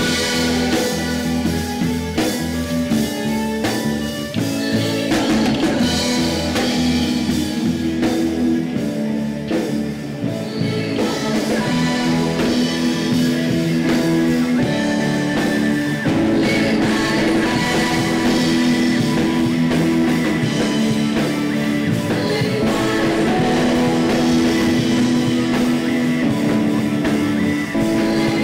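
A band playing rock-leaning music with drum kit and guitar, with a steady beat and held notes throughout.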